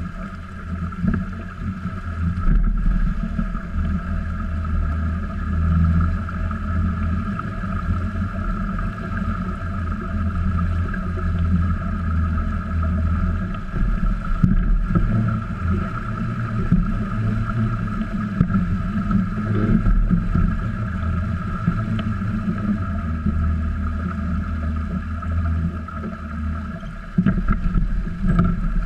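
Wind buffeting the microphone and water rushing along the hulls of a small trimaran sailing under spinnaker, with a steady faint hum underneath.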